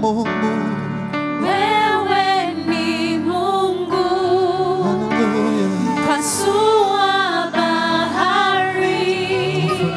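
Worship band accompanying a sung Swahili praise song, with long held vocal notes over sustained instruments.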